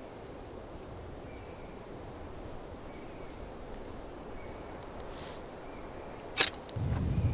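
Faint steady outdoor wind hiss. A single sharp click comes about six seconds in, and just after it wind starts to rumble on the microphone.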